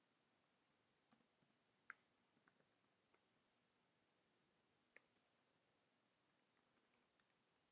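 Near silence with a few faint, sparse clicks of computer keys being typed.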